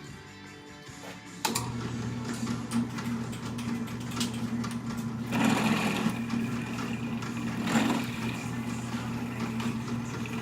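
Electric drill starting up about a second and a half in and running steadily while drilling a hole through a used oil filter, with two louder swells as the bit bears into the metal.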